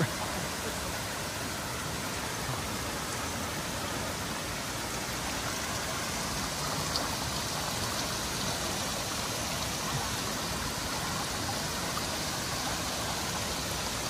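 Steady rush of falling water from Nachi Falls and a dragon-head stone spout pouring into a basin: an even hiss that does not change.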